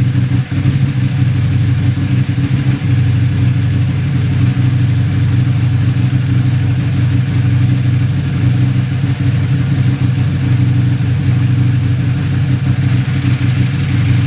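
Buell 1125R's 1125 cc V-twin engine idling roughly, its note holding a steady pitch with small uneven dips in level.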